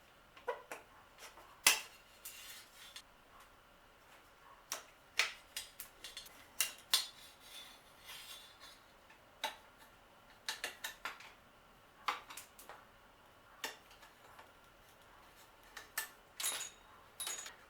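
Irregular metallic clinks and clicks of hand tools against bicycle parts while components are taken off a bike.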